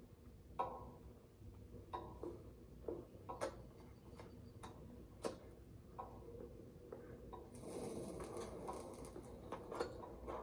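A clock ticking slowly, about one tick a second, faint and spaced a little unevenly. A soft, broad noise swells up about three-quarters of the way through.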